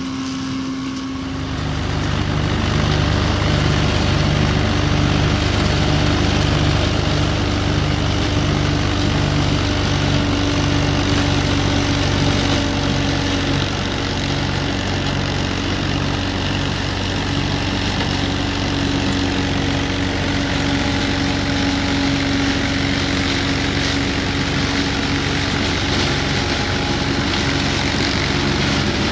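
Yanmar FX215 compact diesel tractor running under load while driving a PTO flail mower that shreds dry maize stalks: a steady engine and rotor drone. It grows louder about a second and a half in.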